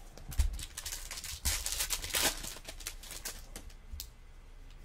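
Baseball trading cards being slid and flicked through by hand: a run of light clicks and sliding swishes, busiest about two seconds in.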